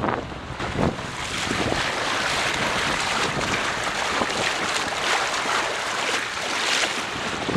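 Bow wave rushing and splashing along the hull of a Mudhen sailboat under sail, swelling and easing with each wave. Wind buffets the microphone, mostly near the start.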